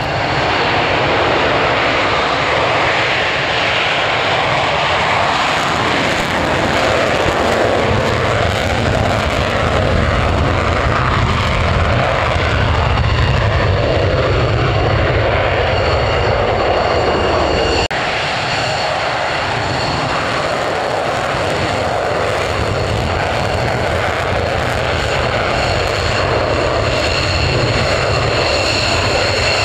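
Twin Pratt & Whitney F100 turbofans of Israeli Air Force F-15s. For the first 18 s there is a loud, steady jet roar. Then, after an abrupt cut, a taxiing F-15's engines whine, with steady high-pitched tones over the rumble.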